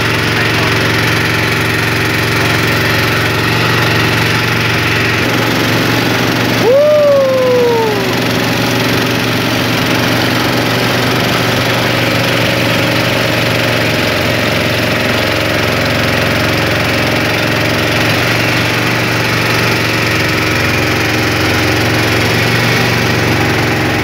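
Long-tail boat engine running steadily under way. About seven seconds in, a short whoop rises and then falls in pitch over the engine.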